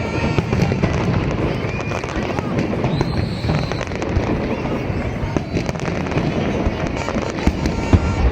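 Aerial fireworks going off in a dense run of bangs and crackles, with a few sharper reports near the end, over the chatter of a large crowd.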